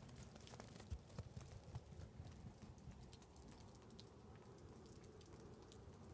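Near silence, with a few faint soft ticks in the first two seconds.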